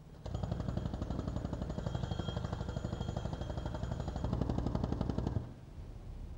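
Pneumatic jackhammer (air-powered road breaker) hammering rapidly into concrete, a fast, even chatter of blows. It starts just after the beginning and stops suddenly about five seconds in.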